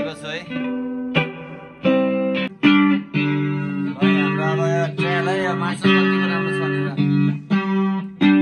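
Electric guitar played through a Marshall MG30FX combo amplifier as it is tried out: chords and notes struck about once a second, each ringing on, with some notes wavering in pitch in the middle.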